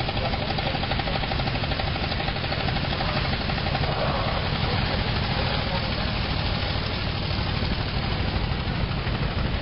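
Veteran car engine running heard on board, a fast, steady, even beat, with the engines of the surrounding veteran cars mixed in.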